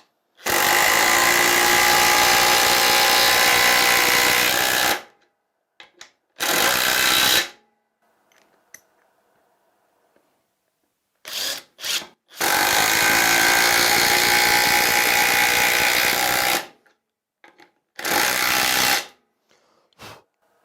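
Parkside Performance PDSSAP 20 Li B2 brushless cordless impact driver driving screws into wood. It runs in two long pulls of about four seconds each, each followed by a short burst about a second long, with quiet pauses between.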